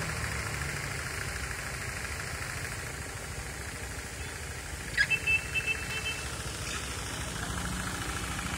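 Steady low engine rumble of road traffic. A few short, high chirps come about five seconds in and are the loudest sounds.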